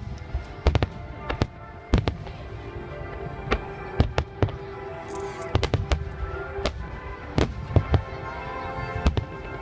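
Aerial fireworks shells bursting in a show, many sharp bangs at irregular intervals, over steady music playing in the background.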